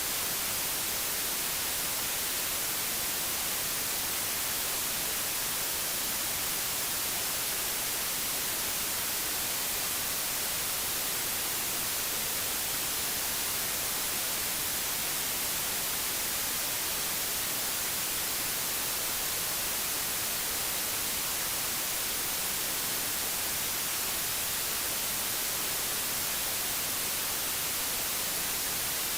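Steady digital white noise: a constant, even hiss, strongest in the high frequencies, with no change.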